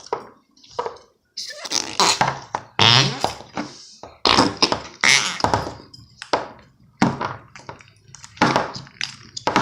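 Homemade slime being squeezed and pushed into a container, making a string of irregular wet squelches.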